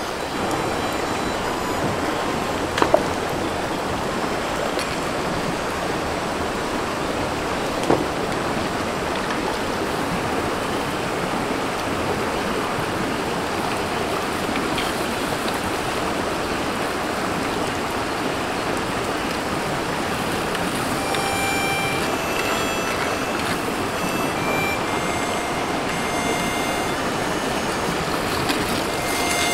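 Steady rushing of a river flowing over stones. Two sharp knocks come about three and eight seconds in, and short high tones join in during the last third.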